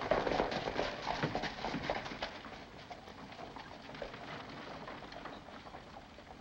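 Hoofbeats of several horses clip-clopping on a dirt street, thick and loud at first, then thinning out and fading as the horses slow.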